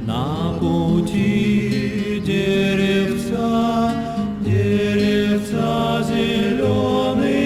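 A song with several voices singing long held notes in harmony as background music.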